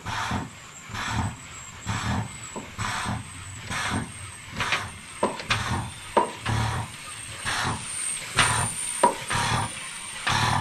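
Hand-pumped vacuum fluid extractor being worked in steady strokes, a rhythmic whoosh about twice a second, as it sucks the old AHC suspension fluid out of the reservoir.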